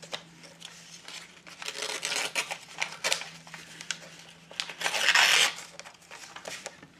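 Paper rustling and crinkling as scrap paper pieces are handled and pressed down, in two main spells, the louder one about five seconds in, with light clicks and taps. A faint steady hum runs underneath.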